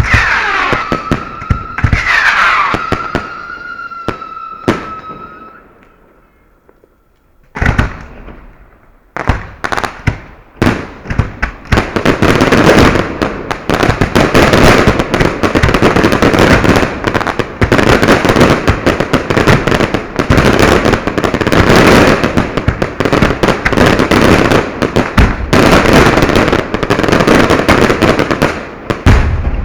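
Fireworks display heard close to the firing positions. For the first few seconds whistling shells glide up and down in pitch, then die away into a short lull. A sharp bang about eight seconds in starts scattered reports that build into a dense, continuous barrage of bangs and crackling, which stops just before the end.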